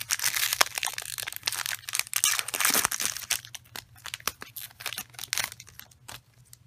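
A foil Pokémon trading-card booster pack being torn open and crinkled in the hands, loudest over the first three seconds or so. Quieter rustling follows as the cards are slid out of the wrapper.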